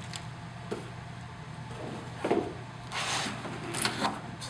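Vinyl ring binders in plastic wrap being handled: a few light knocks and short bursts of plastic rustling, over a steady low hum.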